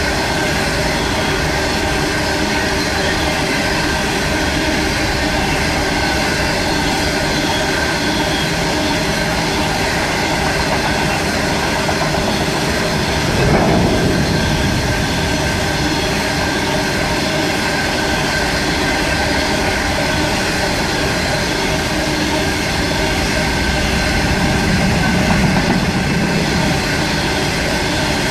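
Empty coal train rolling past: a steady rumble of wagons on the rails with a held high ringing over it. There is a brief louder swell about halfway through and a deeper, louder rumble near the end.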